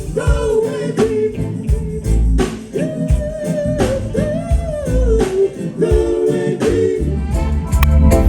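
Reggae music: a sung melody with long held, gliding notes over a steady bass line and drums.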